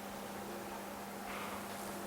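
Steady low electrical hum over a background hiss, with a couple of faint soft rubbing or rustling sounds near the end.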